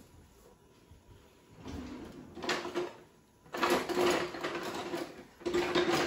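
A wooden kitchen drawer pulled open and the utensils inside rattled and clattered as someone rummages through them for a spatula. It starts faint about two seconds in and turns to loud, busy clattering from about three and a half seconds in, with a short pause near the end.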